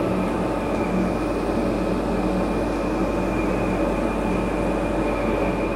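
DC1100 industrial dust collector running at full speed: a steady rush of air from its fan with a thin, steady high whine over it.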